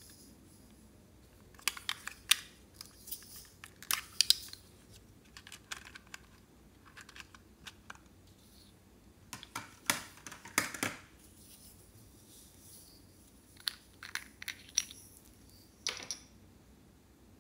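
Small hard-plastic containers being handled and opened: scattered bursts of sharp clicks and rattles, loudest about ten seconds in.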